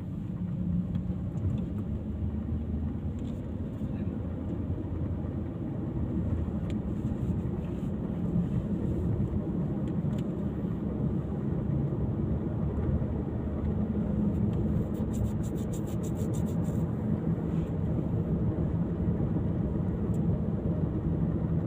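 Steady running noise of a vehicle on the move: a low engine hum with road and wind noise, plus a brief run of light ticking about two-thirds of the way through.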